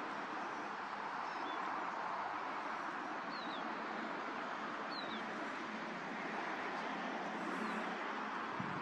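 Small birds giving a few short, thin, falling call notes every second or two over a steady outdoor background hiss, with a soft low knock near the end.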